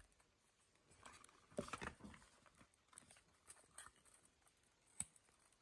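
Faint handling noise of a cardboard trading-card box being opened: scattered soft rustles and taps, with one sharp click near the end.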